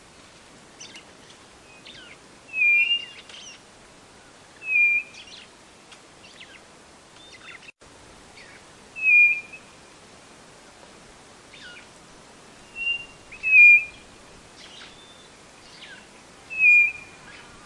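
White-bellied nothura (codorna-do-nordeste) singing: a short, clear whistled note repeated about every two to four seconds, six times. Fainter, quick downward-slurred calls of other birds sound between the notes.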